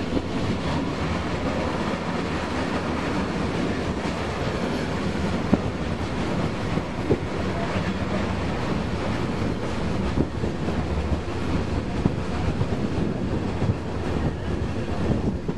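Vintage railway passenger carriage running along the track, heard from an open carriage window: a steady rolling rumble of wheels on rails, with occasional sharp clicks.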